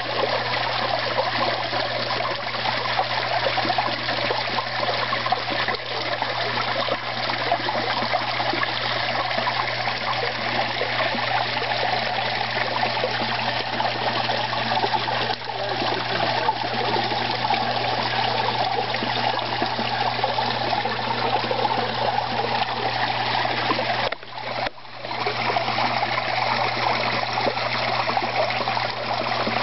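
Water in a koi pond trickling and splashing steadily, over a steady low hum. The water sound drops out briefly about 24 seconds in.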